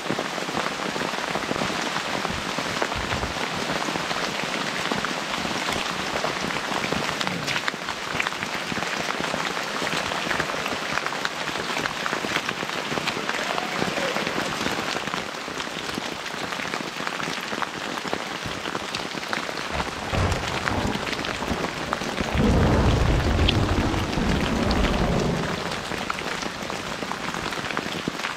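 Steady freezing rain falling through the forest, with a low roll of thunder rumbling for about three seconds near the end.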